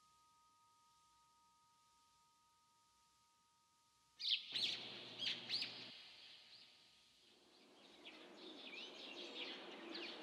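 Two faint steady ringing tones dying away, then about four seconds in a recording of birds chirping over an outdoor hiss starts suddenly and carries on, the chirps coming thick and fast.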